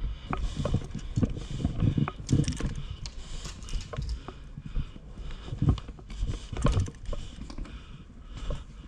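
Irregular clicks, knocks and low thumps of a player moving and handling gear: footsteps and equipment rattling.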